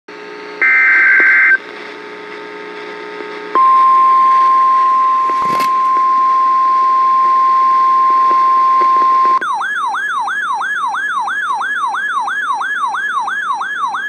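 NOAA Weather Radio tornado warning alert coming from a RadioShack weather radio's speaker. A short burst of data tones comes first, then the steady 1050 Hz warning alarm tone for about six seconds, then a warbling siren alarm rising and falling about three times a second.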